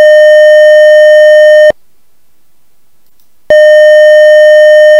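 A 609 Hz fixed-frequency sine tone from the PicoScope function generator, played loud with overtones above it. It sounds twice for about two seconds each, with a gap of about two seconds between. It is played as a stand-in for the suspected differential whine heard in the cabin.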